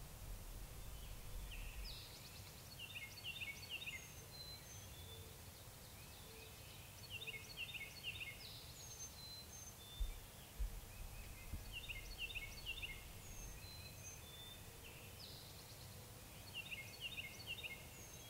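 Songbirds singing: a phrase of quick, high, slightly falling notes comes back about every six and a half seconds, with single high whistles scattered between, over a faint low rumble.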